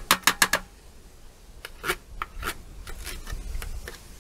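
A metal spoon scraping and tapping against a tin of fish in sauce, scraping the leftovers out. A quick run of sharp clicks at the start, then a few scattered scrapes.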